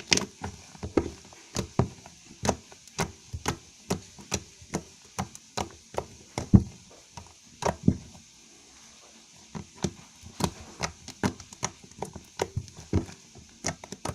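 Fluffy slime made with shaving foam being squeezed and folded in the hands, giving a run of sharp clicking pops, about two or three a second, with a pause of a second or so a little past the middle.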